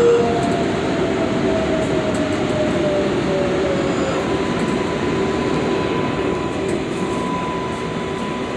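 New York City Subway 7 train running: a steady rumble of wheels on rails under a motor whine that slides down in pitch over the first few seconds, with a thin steady whine above it, as the train slows.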